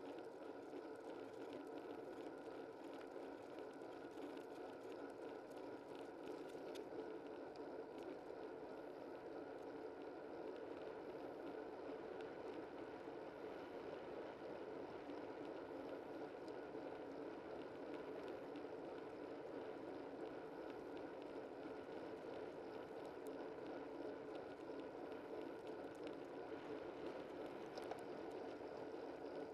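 Steady rushing of wind and tyre noise picked up by a camera mounted low on a bicycle while riding along a road.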